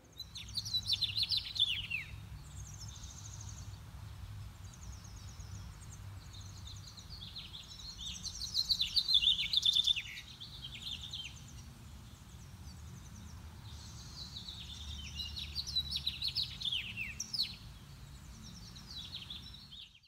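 Songbirds singing in repeated bursts of quick chirps and trills, loudest about eight to ten seconds in, over a steady low rumble.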